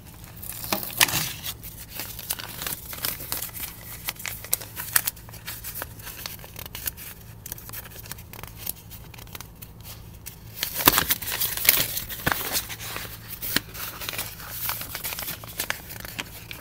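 A folded paper wiring diagram being handled and opened out: paper crinkling and rustling with irregular crackles, busiest about a second in and again around two-thirds of the way through.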